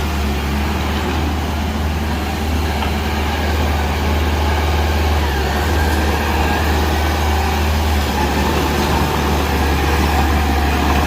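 Truck engine idling steadily: a constant low drone that does not rise or fall.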